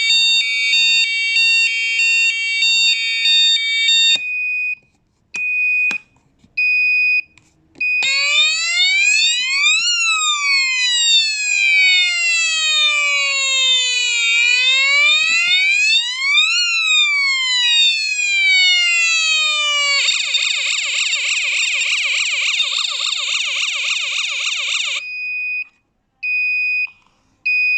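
Electronic alarm tones from an airsoft bomb-simulator case. It starts with fast multi-tone beeping, then gives a few single beeps. Next comes a wailing siren that rises and falls slowly for about twelve seconds, then a fast warbling siren for about five seconds, and it ends with a couple of short beeps.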